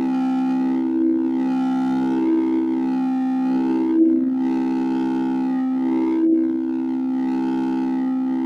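Singing bowls ringing together in a steady, layered drone, their upper overtones swelling and fading in a slow pulsing wobble. A light tap sounds about four seconds in and again about six seconds in.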